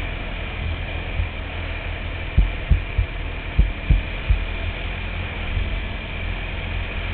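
Quad bike (ATV) engine running at a steady pace on a rough dirt track, with a heavy low rumble. A quick cluster of low thumps comes between about two and a half and four and a half seconds in.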